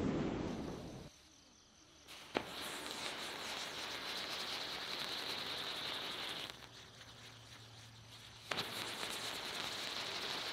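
A swooshing logo sound effect fades out in the first second. About two seconds in, a Doozy ground spinner firework lights with a sharp crack and runs with a steady high hiss and crackling; it drops off for a couple of seconds, then flares up again with a second crack and goes on hissing and crackling.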